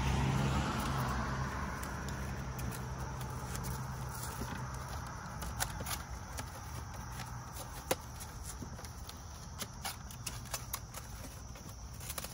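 Split firewood pieces knocking and clicking now and then as they are shifted and settled in a wooden bundling rack, over a steady high insect chirr. A passing vehicle's low rumble fades away over the first couple of seconds.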